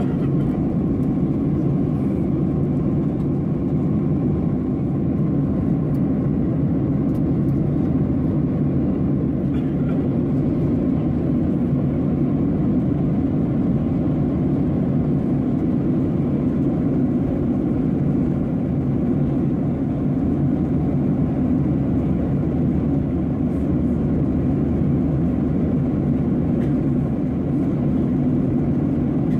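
Steady drone inside the cabin of a Boeing 737-800 in flight, the CFM56-7B engines and the airflow over the fuselage heard as an even, deep rumble from a window seat over the wing.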